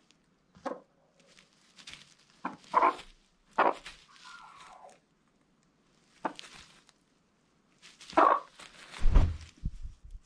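Hens giving a series of short clucks and squawks, one drawn out and falling in pitch, while they jostle on the nest, then a few low thumps near the end.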